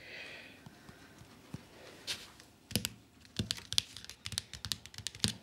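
Light clicks and taps from a solitaire card game being played on a tablet. A few come singly at first, then they come quickly one after another in the second half.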